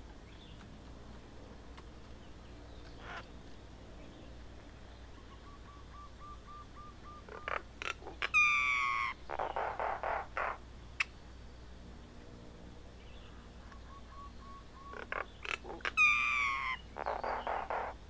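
Common myna calling twice, about eight seconds apart: each phrase is a run of soft even notes and a few clicks, then a loud falling whistle and a burst of harsh, grating churrs.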